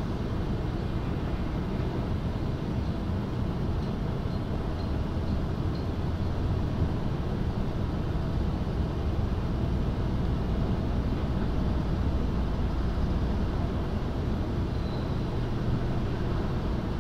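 Steady low rumbling harbour-side outdoor ambience with no distinct events, with a few faint, short high chirps about four to six seconds in and again near the end.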